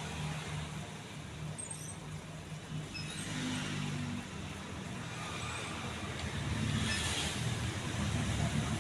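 Majestic Deluxe ceiling fan running: a steady low motor hum under an even rush of moving air.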